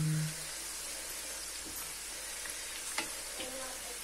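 Gujiya pastries deep-frying in a kadai of oil: a steady, gentle sizzle and bubbling, the oil only moderately hot. A light tap sounds about three seconds in.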